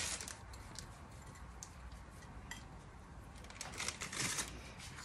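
Faint, scattered light ticks and rustling of crushed Ritz cracker crumbs being sprinkled by hand over fish in a ceramic baking dish, with a small cluster of ticks about four seconds in.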